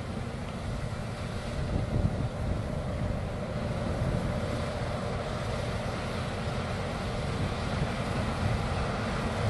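Claas Lexion 580 TT combine harvester running steadily as it cuts oats, slowly getting a little louder as it comes closer, with wind rumbling on the microphone.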